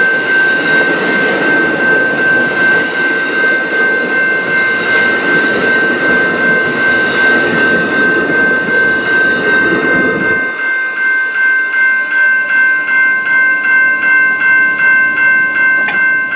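Amtrak Superliner bilevel passenger cars rumbling past on the rails, until the rumble stops abruptly about ten seconds in as the last car clears. A ringing tone struck evenly about two to three times a second goes on throughout, typical of a grade-crossing bell.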